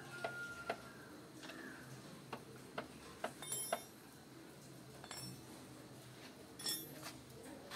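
Faint metal clicks and ticks from a ring spanner working the axle nut of a motorcycle's front wheel as it is tightened, with three brief ringing metal clinks.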